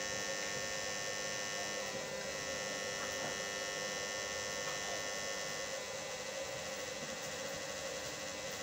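Small battery-powered blower fan running with a steady hum, blowing air into a wood-fired tin-can stove; the blower is not very loud.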